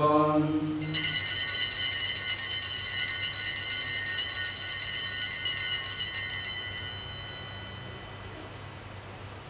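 Altar bells rung at the elevation of the host during the consecration: a bright, many-toned ringing starts suddenly about a second in, keeps ringing for several seconds, and fades away about seven seconds in. It is preceded by the last note of a man's chanted phrase.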